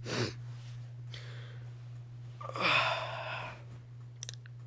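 A long, breathy exhale about halfway through, with shorter breaths before it, over a steady low hum; a couple of faint clicks near the end.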